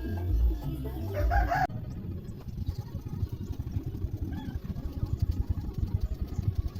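Bass-heavy music that stops abruptly under two seconds in, followed by a dense, crackling low rumble.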